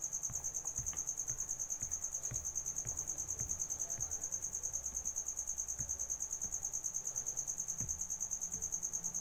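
Cricket chirping: a steady high-pitched trill pulsing rapidly, about eight pulses a second.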